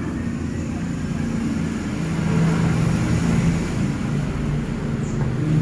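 A steady low mechanical drone, like a motor or engine running, growing a little louder about two seconds in.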